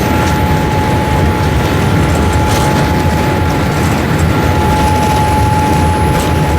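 Boeing 787-8 cabin noise: a steady, loud rumble of engines and airflow with a steady whine running through it.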